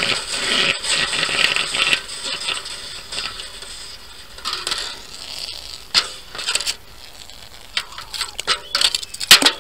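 Hot lump of thermite-made metal sizzling in a metal pan of water, the hiss fading over the first two seconds. Then a series of clinks and scrapes as the lump is worked out of the pan, the loudest knock near the end.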